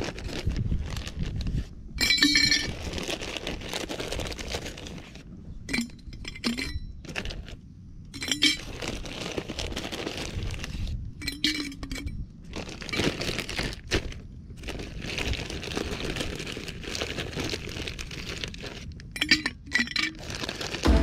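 Ice cubes clinking and rattling against a stainless steel vacuum flask as they are put into it from a plastic bag, in several bursts.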